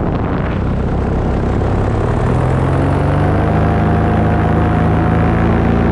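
Paramotor engine and propeller running in flight, with wind rushing across the microphone. About two seconds in, the engine note comes through more clearly and rises slightly in pitch.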